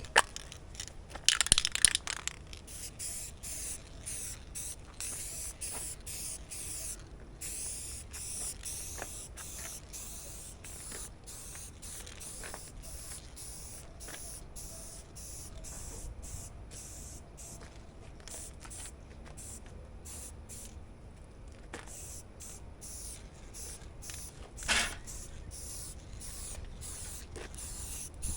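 Aerosol spray-paint can spraying onto a car roof, a high hiss in many short passes with brief breaks between them. There is a louder clatter about a second in, and wind rumbles on the microphone.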